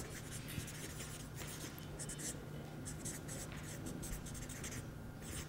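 Marker pen writing on a paper flip chart: a run of quick, irregular scratchy strokes.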